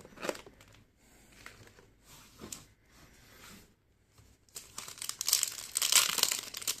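Foil trading-card packet crinkling loudly as it is torn open, dense from about two-thirds of the way in; before that, only faint scattered rustles of handling the packets.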